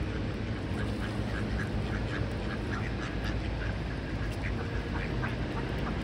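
A flock of mallard ducks quacking in many short, repeated calls over a steady low rumble.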